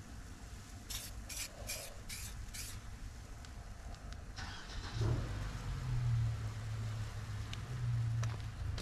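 Five short, sharp hisses of air about a second in, like quick trigger pulls on an air line. A little later a motor starts up and runs with a steady low hum that is the loudest sound here.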